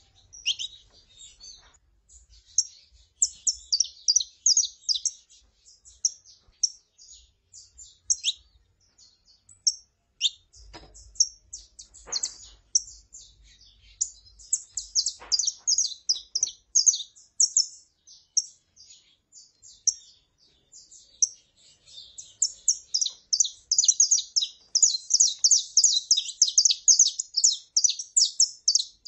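Saffron finches (canário-da-terra), a female calling and a male singing: a steady series of short high chirps and quick notes, sparser through the middle and crowding into a rapid, continuous run in the last third.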